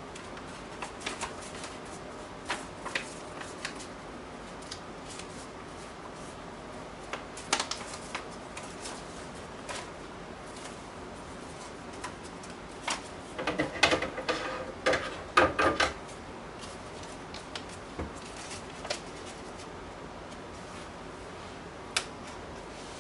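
Scattered light clicks and taps over a steady hiss, with a busier run of louder clicks about fourteen to sixteen seconds in.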